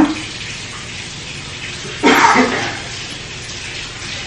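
Steady low room noise around a dinner table, with one short vocal sound, a brief word or laugh, about two seconds in.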